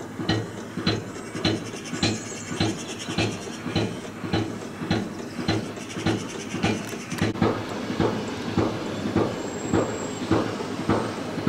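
Steam locomotive working, its exhaust beats coming evenly at about two a second and quickening a little in the second half.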